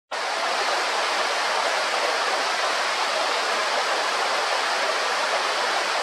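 Small mountain-stream waterfall pouring over rocks into a foaming pool, a steady rushing of water.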